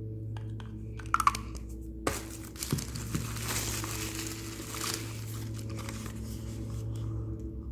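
Plastic packaging being handled and unwrapped: a few sharp clicks, then about three seconds of continuous crinkling and tearing.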